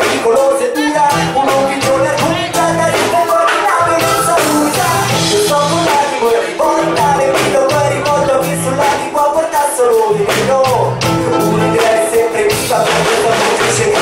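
Live reggae band playing a riddim: drum kit keeping a steady beat, bass guitar, saxophone and keyboards, with a vocalist singing over it on the microphone.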